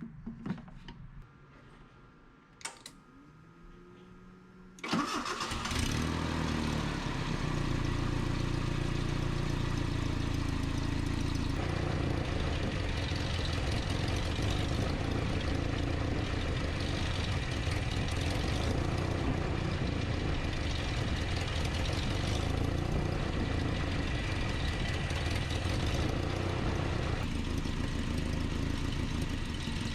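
A 1988 Nissan D21 truck's 2.4-litre Z24 four-cylinder engine starts about five seconds in and then idles steadily. The idle note shifts slightly twice.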